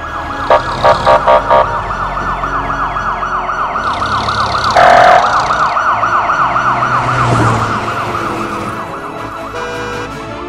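Police car siren yelping rapidly up and down, slowly fading near the end. A quick series of short toots comes about half a second in, and one loud blast about five seconds in.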